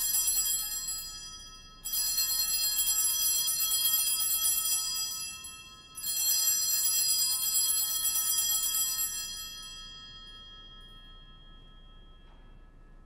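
Altar bells shaken: the ringing carries on from before, fades, and is rung twice more, about two and six seconds in, each peal holding for a few seconds before dying away. These are the bells rung at the elevation of the consecrated host.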